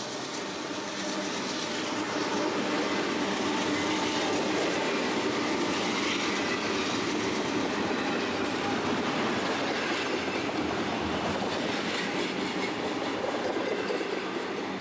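Double-stack intermodal well cars of a Union Pacific freight train rolling past close by, steel wheels running on the rails in a steady, unbroken noise.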